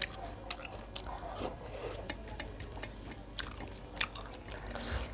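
Close-up eating sounds of a person chewing a meal, with scattered short clicks and wet mouth smacks.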